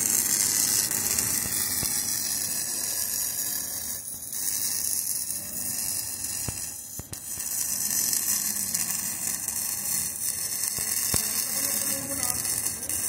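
Electric arc welding on a caravan's steel A-frame: the arc keeps up a steady crackling sizzle, dipping briefly twice where the arc breaks off.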